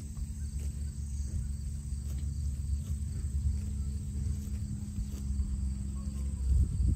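Pasture ambience: a steady low rumble of wind on the microphone with a steady low hum, and insects chirring in a faint steady high tone.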